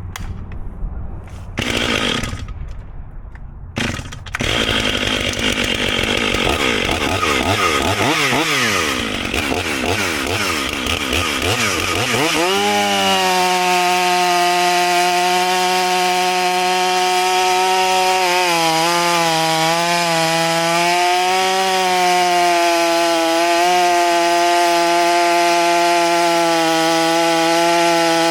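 Stihl MS500i fuel-injected two-stroke chainsaw running. After a few short bursts, about twelve seconds in it revs up to full throttle and holds high. Its pitch dips repeatedly as the chain bites into the log being bucked.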